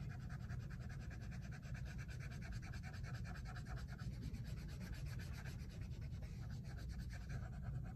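Colored pencil colouring on paper in quick, even back-and-forth strokes, a steady fast scratching, over a low steady hum.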